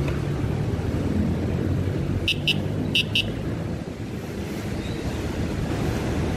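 Steady low rumble of road traffic and engines, with four short high-pitched horn toots in two quick pairs about two seconds in.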